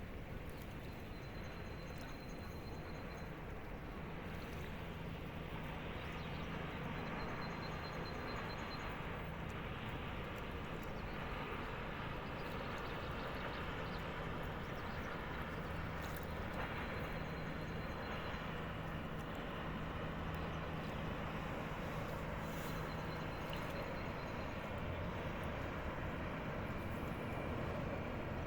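Steady low engine drone of a passing river ship, growing slightly louder, with a faint high chirp coming back every few seconds.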